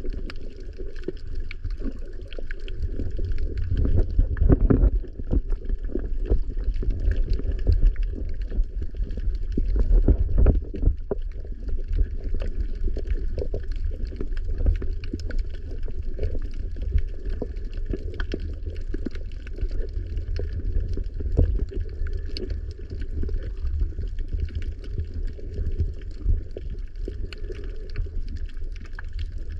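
Underwater water noise picked up by a camera in its housing on a coral reef: a muffled low rumble of moving water with a constant faint crackling over it, swelling louder a few times in the first third.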